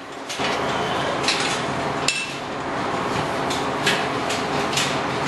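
Galvanized steel sow stalls clanking and rattling, with repeated sharp metal knocks over a steady background noise that gets louder about half a second in.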